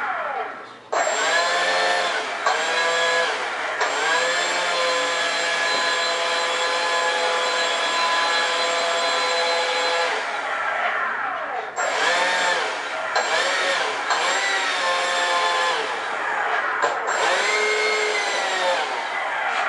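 70 mm ten-bladed electric ducted fan on a 2600 kV brushless motor, throttled up on the ground as a whine with many overtones. The pitch jumps up about a second in, holds high for about six seconds and spools down. It then rises and falls in a string of short throttle blips before winding down near the end.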